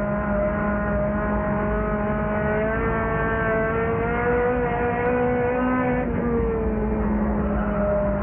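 Race car engine running hard under load, heard from inside the car. Its pitch climbs a little a few seconds in, then falls back about six seconds in.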